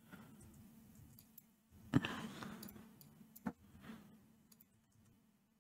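Faint, scattered clicks of a computer keyboard and mouse, the loudest about two seconds in, over a faint steady hum.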